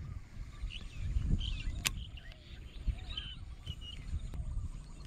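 Wind rumbling unevenly on the microphone while a baitcasting rod and reel is cast and worked, with a sharp click about two seconds in and another at the very end. Short, high bird chirps come through in the middle.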